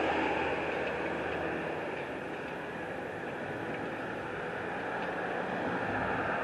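Steady vehicle noise, a continuous rush and engine hum that eases a little in the middle and builds again near the end.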